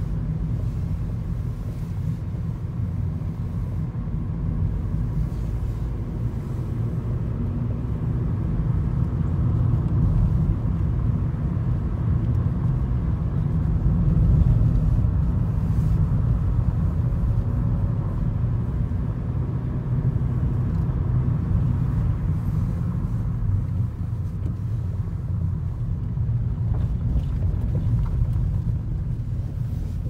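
Car driving, heard from inside the cabin: a steady low rumble of engine and tyre noise that swells a little midway.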